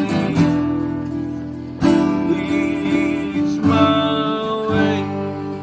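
Background music: acoustic guitar strumming chords, a new strum about every two seconds.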